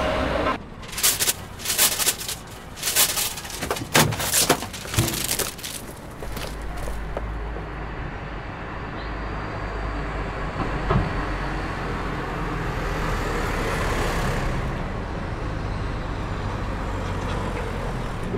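A string of sharp knocks or bangs with short gaps, then street traffic: a steady low engine rumble with a car passing by about two-thirds of the way through.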